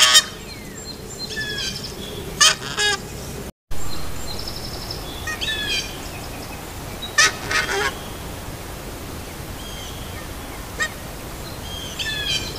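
Canada geese honking in short, loud bursts, several times, alarm honks at a red fox close by. Fainter high bird chirps run underneath.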